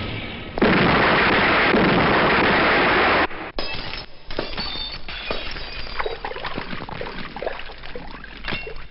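A film sound effect of an explosion: a loud, even roar starting suddenly and cutting off abruptly after about three seconds. It is followed by scattered clinks and crackles of falling debris.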